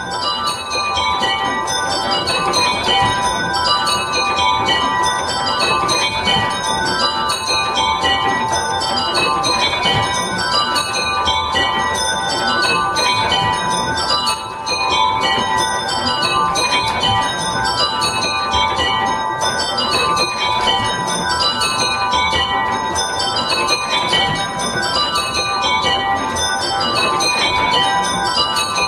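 A miniring of eight small tower bells, cast and hung by Higby & Bowditch with a 9 lb 8 oz tenor in G, is being rung in change ringing. Each row of strikes runs down from the highest bell to the tenor, and a new row comes roughly every two seconds.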